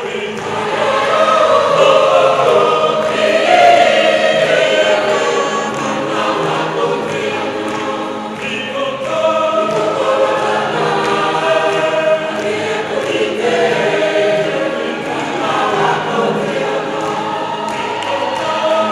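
Mixed choir of men and women singing in parts, with several voices holding sustained notes together.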